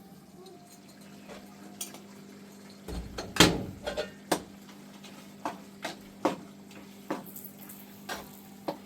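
A series of sharp clinks and knocks of hard objects, a dozen or so at uneven spacing, the loudest about three and a half seconds in, over a steady low hum.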